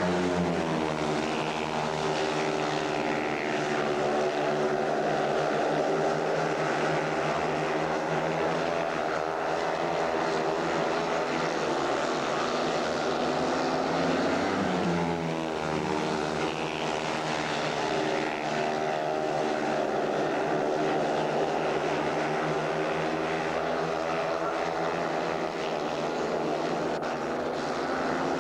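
A pack of speedway bikes racing, their single-cylinder 500 cc methanol engines running hard with a pitch that keeps rising and falling as the riders go through the bends and down the straights.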